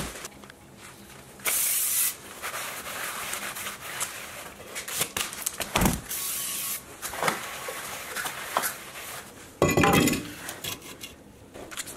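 Aerosol brake cleaner hissing in short bursts onto a new cross-drilled steel brake disc. Near the end, a loud metallic clank and a few clinks as the disc goes onto the wheel hub.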